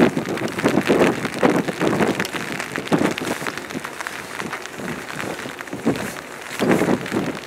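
Rain pattering close to the microphone in many sharp drop hits, with wind gusting across the microphone in bursts that are loudest in the first few seconds and again near the end.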